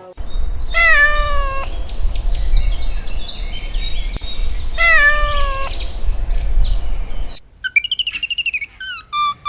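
A cat meowing twice, about four seconds apart, each call long and falling in pitch, over a low rumble, with chirping between the meows. About seven seconds in the sound changes abruptly to a bird's quick, repeated chirps.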